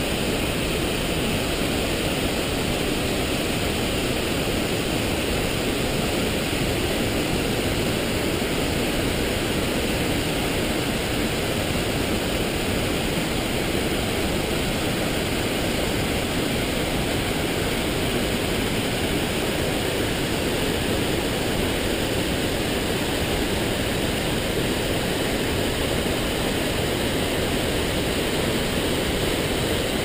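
Large waterfall in flood and its swollen river pouring over rocks: a steady rush of falling and churning water.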